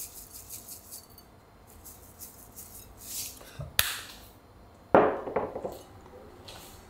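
Ceramic rice bowls being handled: a faint light rattle at the start as sesame seeds are shaken from a shaker, a sharp click a little before four seconds in, and a louder knock with a short ring about five seconds in as a bowl is set down on a wooden table.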